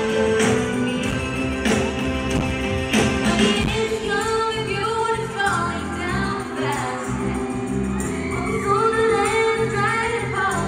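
Live pop band playing through a concert sound system, with a sung melody coming in about four seconds in.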